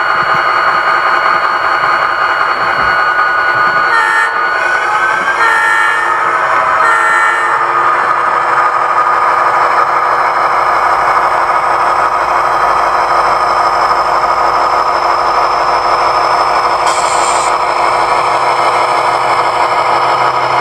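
Train horn sounding a steady multi-note chord, with a brief shift in pitch between about four and seven seconds in.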